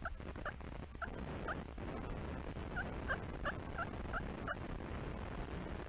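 Turkey yelps: a run of four short notes, a pause, then a run of six, about two to three notes a second.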